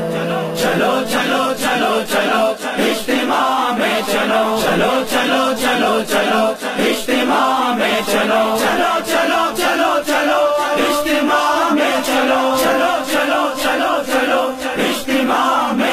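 Urdu devotional nasheed: male voices chanting in chorus over a steady beat of about two strikes a second.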